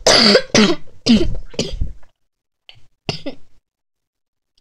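A woman coughing hard: about four harsh coughs in quick succession, then two smaller ones about three seconds in. She has a cold.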